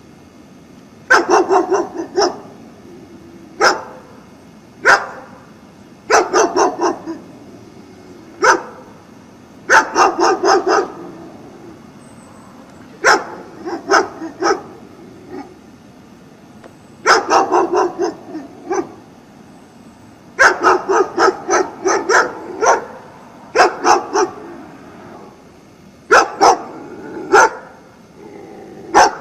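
German Shepherd barking loudly at the person filming, in quick runs of two to six barks with short pauses between them. This is territorial barking, shown as a sign of a dominant-aggressive dog.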